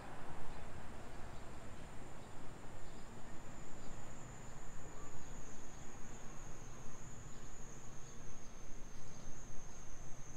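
A steady, high-pitched insect drone, growing louder about halfway through, over a low rumble of street noise.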